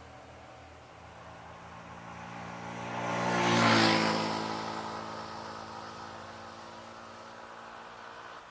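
A vehicle passing close by: its sound builds to a peak about three and a half seconds in, drops in pitch as it goes past, then fades away.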